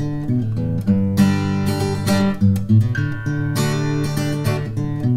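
Background music led by a strummed acoustic guitar.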